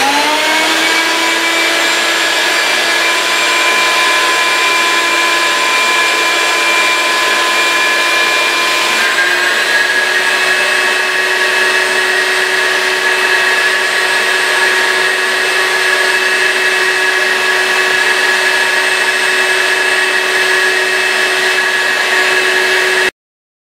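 Vacuum motor of a vacuum-forming table running steadily with a whine, drawing a heated plastic sheet down over a window plug. It spins up at the start, its pitch steps up a little about nine seconds in, and it cuts off abruptly near the end.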